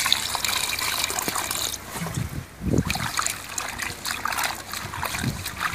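Water poured into a metal bowl of raw chicken pieces, splashing for about two seconds; then hands washing the chicken in the water, with small splashes.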